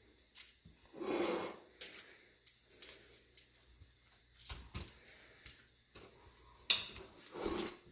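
Metal spoon scraping and tapping as it scoops the filling out of a roasted stuffed bell pepper on a foil-lined plate, with scattered light clicks and one sharp click near the end.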